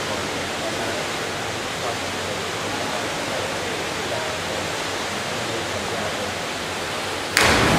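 Steady, even hiss of a large indoor diving-pool hall while the crowd is hushed for a synchronised 10 m platform dive. Near the end a sudden loud burst as the two divers hit the water.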